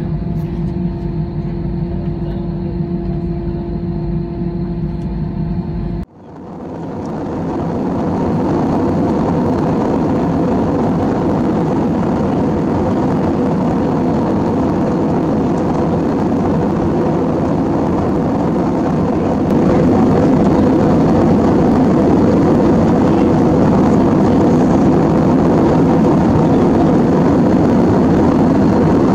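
Airbus A320 cabin noise at a window seat. First the jet engines idle on the ground: a steady hum with a few held tones. After a sudden cut about six seconds in comes the steady rushing roar of engines and airflow in flight, which steps up a little louder about nineteen seconds in.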